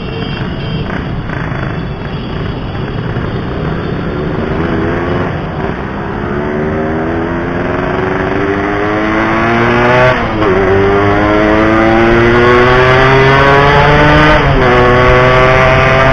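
Yamaha RX-King 135 cc single-cylinder two-stroke motorcycle engine accelerating hard. Its pitch climbs steadily, drops at an upshift about ten seconds in, climbs again and drops at a second shift near the end.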